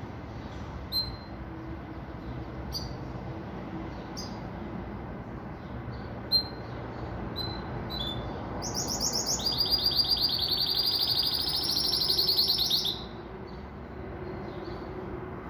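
Caged pintagol, a hybrid of a Venezuelan siskin and a Belgian canary, giving short high chirps every second or so. About eight and a half seconds in, it breaks into a loud, fast, continuous trilled song lasting about four seconds that cuts off suddenly.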